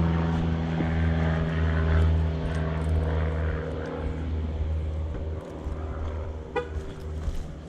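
Single-engine propeller plane, a Cessna 172 Skyhawk, droning steadily overhead. The drone slowly fades as it flies away.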